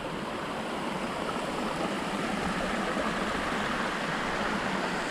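Steady rush of flowing water at the top of a waterfall, an even noise with no breaks.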